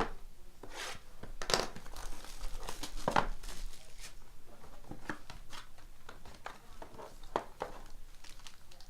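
Plastic wrapping of a trading-card box being torn open and crinkled by hand, in a string of irregular rustles and rips.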